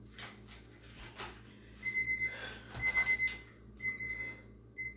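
Electronic workout interval timer beeping: three high beeps of about half a second each, roughly a second apart and starting about two seconds in, then a short fourth beep near the end, marking the rest interval running out. Faint handling noises of a plastic water bottle lie under it.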